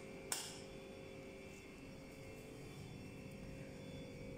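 Faint steady hum with a few thin steady tones, and one sharp click about a third of a second in.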